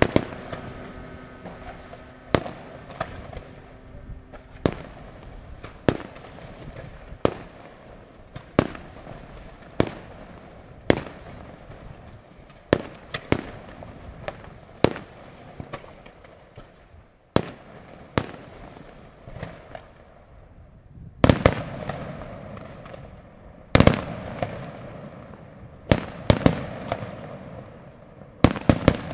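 Fireworks display: aerial shells bursting in a steady run of sharp bangs, about one a second, with crackling between them. In the second half several louder, deeper bangs come, some in quick pairs.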